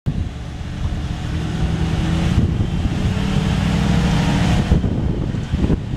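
1992 Ford F-700 crane truck's engine running as the truck drives past, its engine note rising for about two seconds in the middle, then fading into a rougher low rumble near the end.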